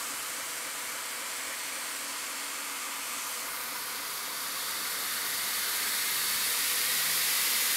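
2x72 belt grinder running an abrasive belt over a 3D-printed drive wheel with nothing being ground, a steady rushing hiss. About two-thirds of the way through it grows louder as the VFD-driven motor is turned up from about 20% speed toward 35%.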